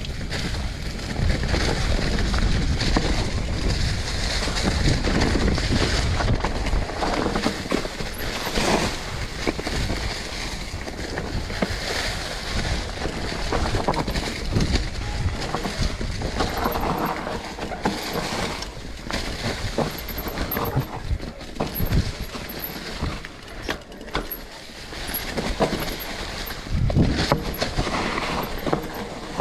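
Mountain bike rolling down a dirt singletrack covered in dry leaves: steady tyre and leaf noise with a rushing rumble, and scattered sharp knocks and rattles from the bike over bumps.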